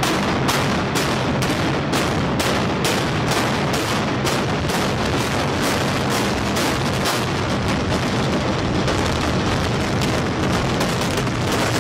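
Loud music with a fast, even percussive beat.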